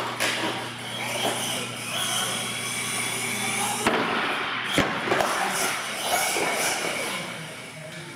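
Radio-controlled monster truck's electric motor whining as it speeds up and slows down, with its tyres on a concrete floor. Two sharp knocks near the middle as the truck hits the ramp and lands.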